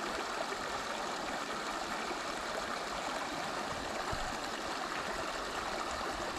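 A small stream's water running steadily over rocks in a shallow riffle.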